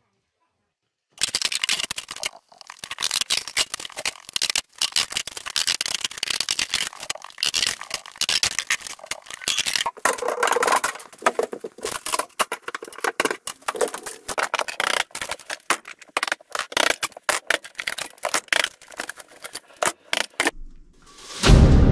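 Ceiling boards being torn down with a crowbar: a rapid, irregular run of cracking, knocking, scraping and rattling. It stops shortly before the end, where music comes in.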